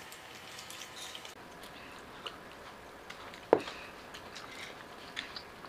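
Quiet eating sounds: soft chewing and small clicks as masala dosa is eaten, with one sharp knock about three and a half seconds in.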